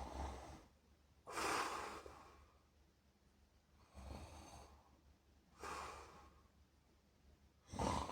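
A sleeping person snoring: noisy breaths in and out, five of them, spaced about one and a half to two and a half seconds apart.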